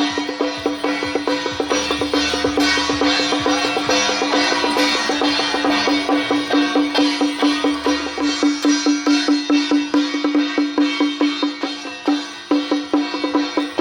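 Taiwanese temple-procession music: a quick, steady percussion beat of about five strikes a second over a held tone, with a brief break about twelve seconds in.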